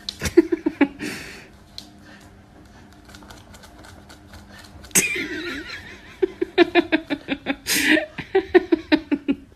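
A person laughing in runs of quick, rhythmic ha-ha pulses: briefly at the start, again from about five seconds in, and through the last three seconds, with a breathy gasp near the end. A sharp click about five seconds in.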